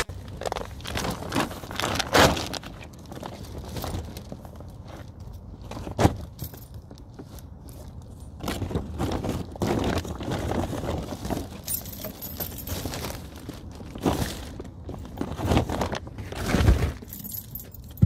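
A bunch of keys jangling in the hand, with plastic shopping bags rustling and scattered knocks and clicks of handling.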